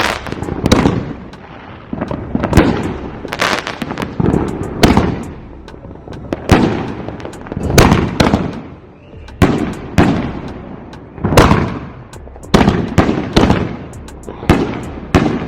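Fireworks going off in quick succession: a string of loud bangs, roughly one a second at uneven spacing, each with a trailing echo.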